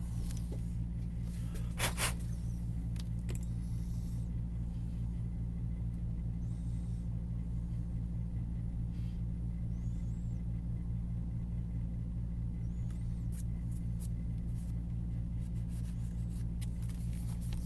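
Steady low hum, with two sharp clicks about two seconds in.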